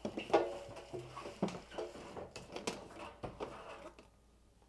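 Hoover tumble dryer's metal drum knocking and scraping against the cabinet as it is lifted out through the front of the machine: a string of light metallic clanks and rattles, some briefly ringing, that die away near the end.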